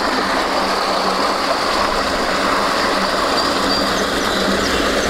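Water pouring steadily through a lake's concrete overflow outlet under a metal grate, a continuous rushing.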